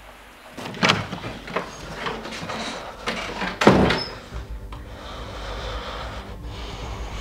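A door being handled and shut: two sharp bangs, one about a second in and a louder one just past the middle, with lighter clicks and clunks of the latch between.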